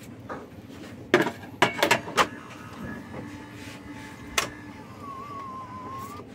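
Saeco Pico Baristo super-automatic coffee machine starting its rinse cycle after heating up. A few sharp knocks and clatters come in the first couple of seconds, then a steady mechanical hum, another knock, and a wavering whine near the end.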